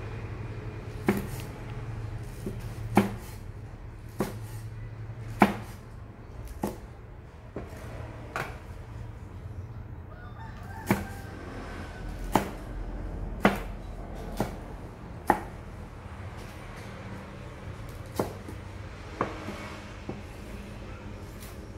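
Cleaver slicing fresh red chilies on a thick round wooden chopping board: single sharp knocks of the blade on the wood, about one every second or so, over a low steady hum.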